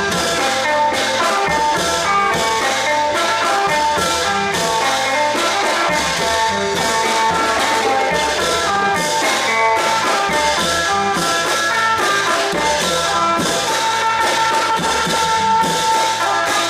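Thai long drum (klong yao) band playing: a steady, rapid drumbeat with a melody of held notes over it.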